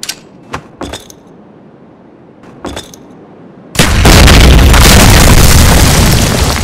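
Sound-effect explosion for an intro: a few short sharp cracks, then a little under four seconds in a sudden, very loud explosion blast that keeps rumbling for about three seconds as it slowly fades.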